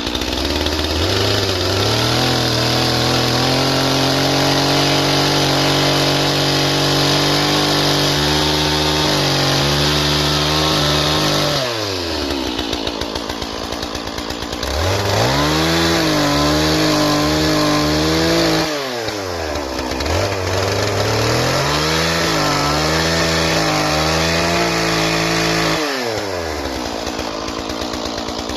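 Stihl MS 461 two-stroke chainsaw bucking logs: three times the engine is throttled up to a high, held pitch that sags as the chain bites into the wood, then drops back to a low idle between cuts. A fourth rev-up begins near the end.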